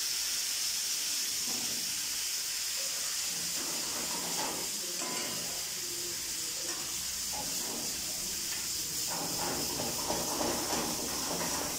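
Sauce sizzling in a hot frying pan with a steady hiss, while a metal ladle stirs and scrapes around the pan, the stirring coming more often in the second half.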